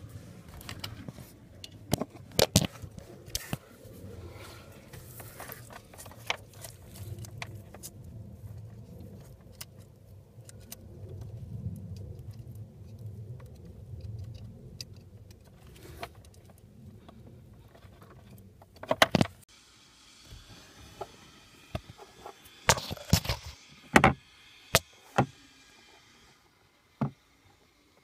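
Clicks, knocks and light rattles from jumper wires and a connector being handled under a car's dashboard, over a steady low hum. The hum stops about two-thirds of the way in, and a fainter hiss follows with more clicks.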